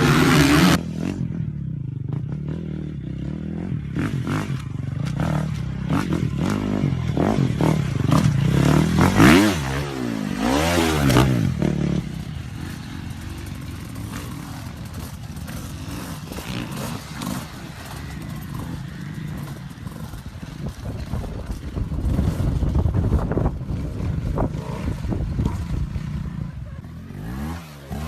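Dirt bike engines revving, with repeated rises and falls in pitch, loudest near the middle, mixed with clattering knocks and scrapes.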